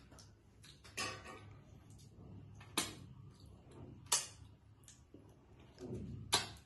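Lip smacks and mouth clicks from someone eating by hand and licking his fingers: four short, sharp clicks spread over a few seconds, over a low background.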